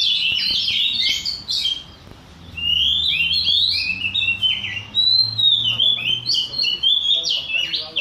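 Oriental magpie-robins (kacer) singing: rapid, varied whistled phrases that run on almost without a break, with a short pause about two seconds in.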